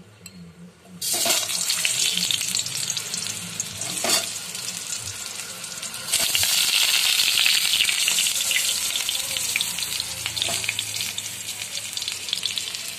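Boiled potato pieces going into hot mustard oil in a kadai and frying: a sudden sharp sizzle starts about a second in, with a knock near four seconds. Around six seconds in the sizzle surges louder as more pieces go in, then eases.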